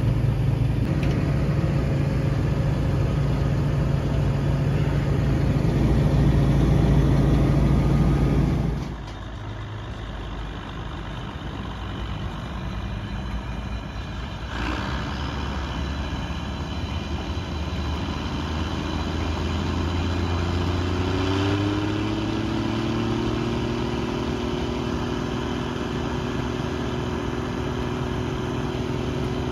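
A pump runs steadily at the fuel tank for the first nine seconds or so. The sound then cuts to the Massey Ferguson 860 combine running. About two-thirds of the way in, its pitch climbs and then holds as the engine is brought up to speed and the drive belt is engaged to spin the machine up and blow out settled dust.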